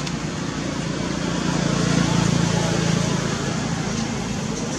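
Motor vehicle running, a low engine hum over steady road noise that swells to its loudest about halfway through and then eases off.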